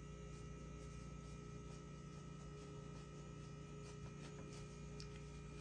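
Faint steady electrical hum, with a few soft small clicks.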